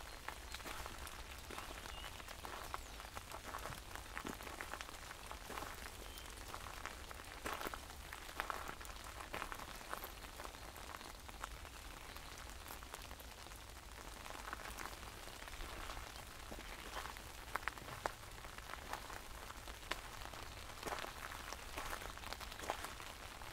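Rain falling on an umbrella held overhead: a dense, irregular scatter of sharp drop ticks over a steady hiss of rain.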